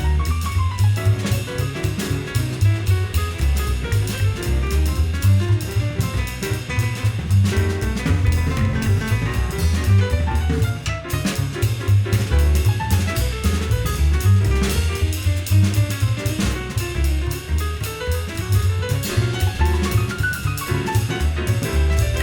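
A jazz piano trio playing: acoustic piano, drum kit and acoustic double bass. The drums keep up a busy, continuous pattern over the bass, and the piano plays runs that sweep up and down in pitch, one about halfway through and another near the end.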